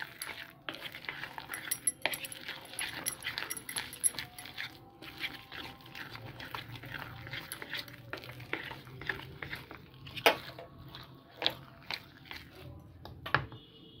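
A wire whisk stirring a thick semolina-and-wheat-flour batter in a container: wet squelching and scraping, with irregular clicks of the wires against the sides and a few sharper knocks in the last few seconds.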